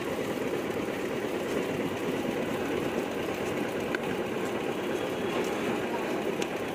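Steady engine-like rumble of street machinery, with a few faint clicks of a knife tapping a wooden chopping board as a tomato is sliced.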